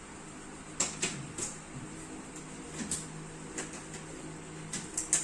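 Irregular light clicks and knocks, about ten of them spread unevenly, as of small objects being handled and set down, over a steady low hum.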